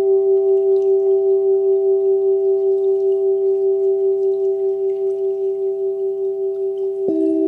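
Singing bowl ringing with an even pulsing waver, slowly fading. Near the end another, lower-pitched bowl is struck and rings on.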